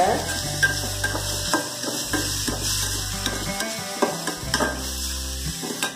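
A steel spoon scraping and clinking irregularly against a stainless-steel kadai as chopped vegetables are stir-fried, with a steady sizzle of the vegetables frying in oil.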